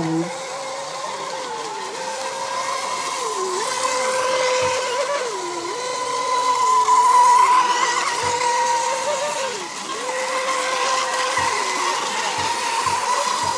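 Several Mini Mono radio-controlled racing boats running at speed, their motors giving a steady high whine over the hiss of water. The pitch dips and recovers every second or two.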